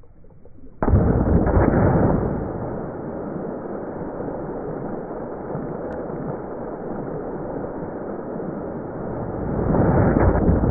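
Slowed-down sound of a large water-filled balloon bursting on concrete: a deep, muffled rushing noise that starts suddenly about a second in, carries on steadily, swells again near the end and cuts off.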